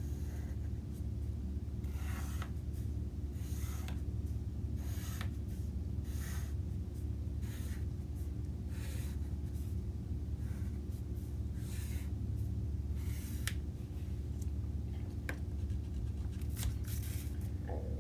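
Wooden pencil drawing lines on paper: a series of separate short strokes, about one every second, over a steady low hum.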